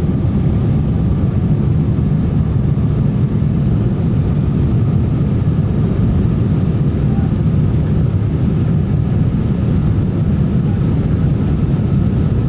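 Airliner noise: a steady, even low rumble of engines and airflow with a faint steady hum above it, unchanging throughout.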